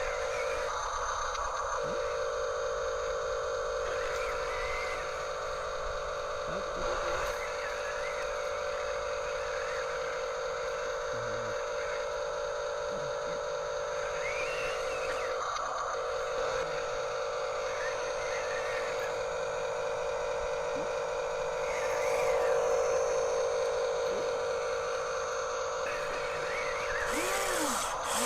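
Small electric motors and plastic gearboxes of hobby RC construction models running, a steady whine, with brief chirps over it now and then.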